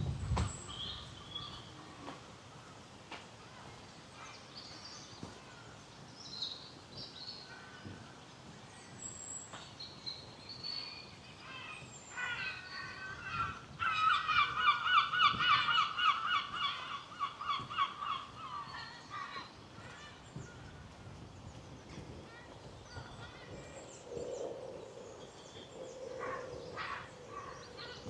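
Bird calling in a long run of rapid, harsh repeated notes lasting several seconds in the middle, over scattered short high chirps from small birds.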